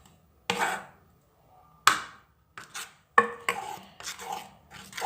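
Several sharp knocks and clatters of kitchen utensils and containers striking a hard surface, spaced out at first and then coming more quickly.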